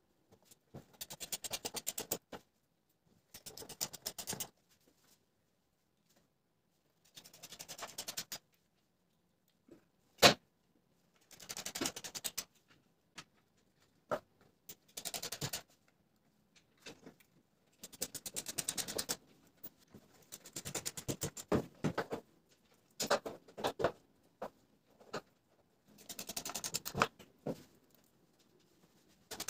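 Screwdriver driving and tightening screws on the extruder's mounts, in repeated short bursts of rapid scratchy clicking with pauses between them. There is one sharp knock about ten seconds in.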